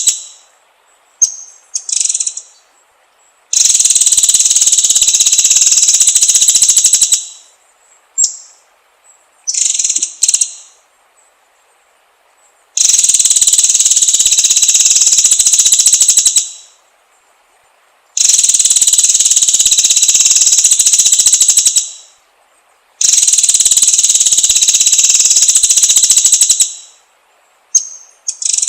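Songbird training (masteran) recording for white-rumped shamas: loud, rapid, high-pitched buzzing trills, each lasting three to four seconds and repeated four times. Short sharp chirps fall in the gaps between them.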